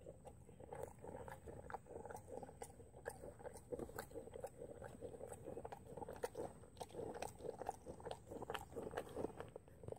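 A two-week-old miniature horse colt munching crushed pelleted feed crumble from a pan: an irregular run of soft crunching chews.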